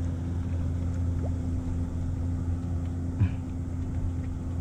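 Boat engine running steadily with a low, even hum, and a single short knock about three seconds in.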